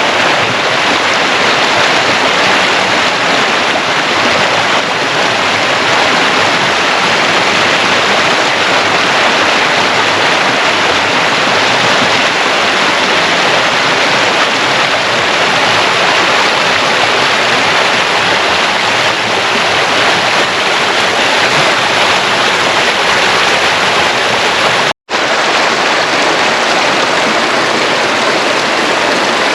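Tank Creek's water rushing steadily over rocks close by, a loud, even rush with one momentary break near the end.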